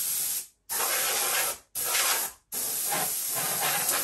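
Air duster blowing dust out of a digital piano's opened case: four blasts of hissing air, the first three short and separated by brief gaps, the fourth held long.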